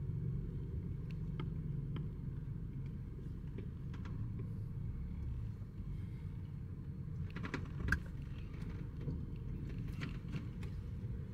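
Steady low rumble with scattered faint clicks, and a brief louder knock about eight seconds in.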